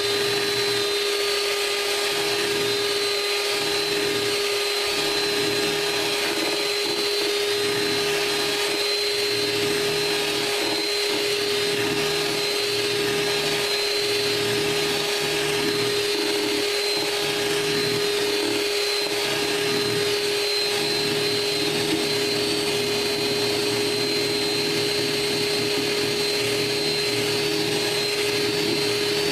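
Electric hand mixer running steadily at one speed, a continuous motor whine, its two beaters whipping egg whites and sugar into a French meringue.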